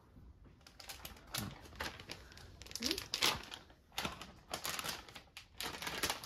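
A plastic bag of dry cat food crinkling as it is handled, mixed with quick runs of small clicks, in several irregular bursts, the loudest about three seconds in.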